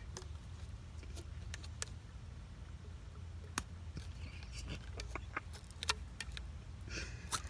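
Scattered light clicks and taps from handling a PVC condensate drain trap and pipe fittings, over a steady low hum.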